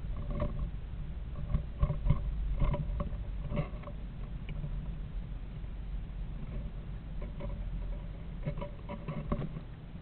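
Southern flying squirrel scratching and knocking about inside a nest box: irregular claw scrabbles and small knocks, busiest in the first few seconds and again near the end, over a steady low hum.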